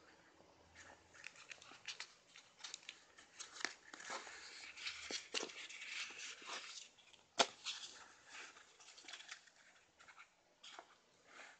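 Plastic-backed nail wrap sample sheets crinkling and rustling as they are picked up and handled, with many small clicks and one sharper tap a little past halfway.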